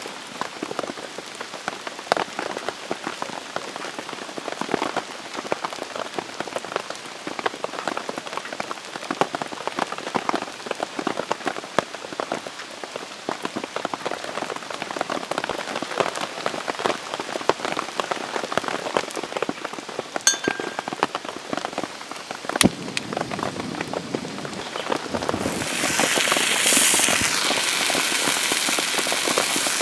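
Rain falling, a dense patter of many small drops hitting a surface. About 25 seconds in a louder steady hiss joins it and keeps on.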